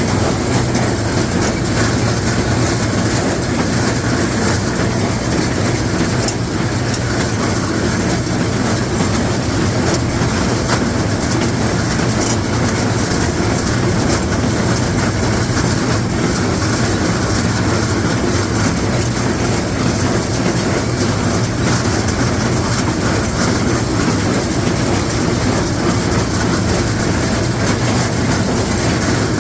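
LS XR4150 tractor pulling a John Deere 466 round baler, the engine and baler running steadily with a continuous mechanical clatter.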